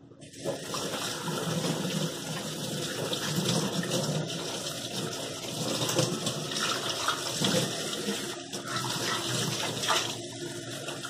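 Kitchen faucet running, the water splashing onto nonstick pans and a glass lid as they are rinsed by hand; the water starts just after the beginning and keeps running, rising and falling slightly as the pans are moved under the stream.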